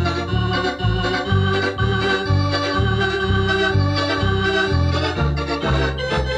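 Thomas electronic home organ playing a lively tune: a bouncing pedal bass line of about two notes a second under held chords, with short detached chords returning near the end. The cassette recording carries some tape wow and flutter.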